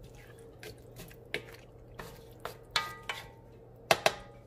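A cooking utensil clinking and scraping against a large metal wok while stirring vegetables, with a few short ringing metal knocks and two sharp clicks near the end.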